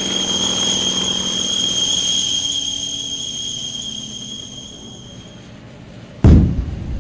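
A steady high whistle over the fading drone of a propeller plane, dying away about five and a half seconds in. About six seconds in, a loud firecracker explosion bangs and rumbles as it blows up a paper model tank.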